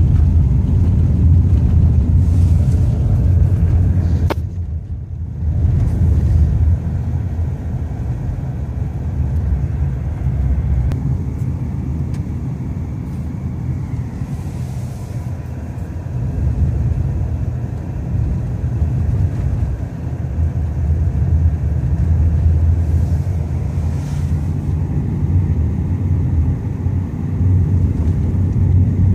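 Steady low rumble of a moving car heard from inside the cabin: road, tyre and engine noise, dipping briefly after a small click about four seconds in.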